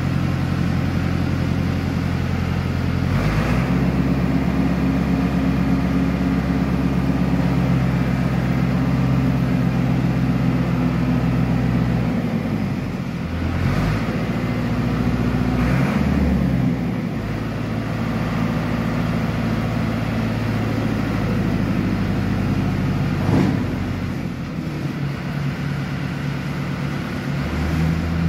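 Tractor diesel engine running the mounted forage chopper, its speed stepping up about three seconds in and dropping and wavering from about twelve seconds on. A few short knocks come through along the way.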